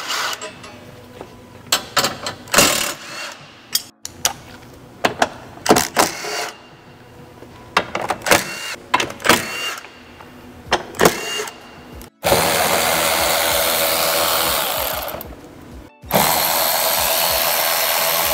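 Scattered sharp clicks and knocks of hand work, then a cordless power tool runs twice, for about three seconds and then about two, backing out undertray and fender-liner fasteners. A music bed plays underneath.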